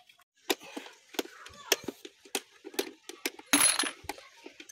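Hand tools clicking and clinking against metal on the exposed cylinder head of a Peugeot 307CC 2.0 petrol engine: sharp, irregular clicks about two a second, with a short rattle of metal about three and a half seconds in.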